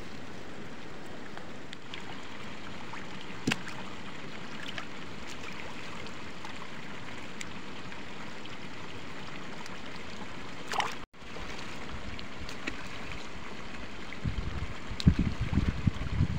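Steady rush of water from a pipe pouring into a pond. A few brief clicks, and from near the end a run of loud low thumps.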